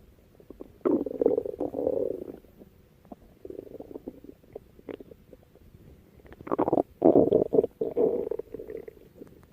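Stomach growling: irregular gurgling rumbles with quick bubbly clicks. One burst comes about a second in, a fainter one near the middle, and the loudest, longest stretch in the last third.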